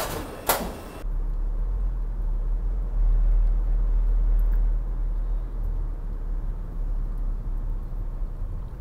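Steady low rumble of a car driving, heard from inside the cabin: engine and road noise. Two sharp knocks come in the first half-second.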